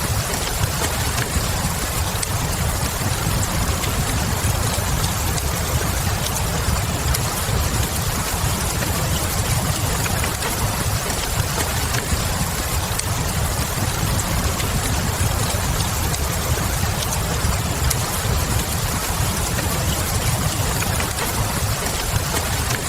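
Steady rain over a constant low rumble, with scattered small crackles from a log fire.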